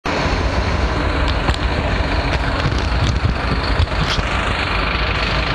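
Ambient sound of a public transport vehicle: a steady low engine rumble under a constant running hiss, with a few small rattles and clicks.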